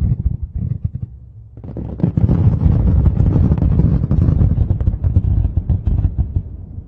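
Fireworks display: a dense run of bangs and crackling over a low rumble. It starts up about a second and a half in and dies away near the end.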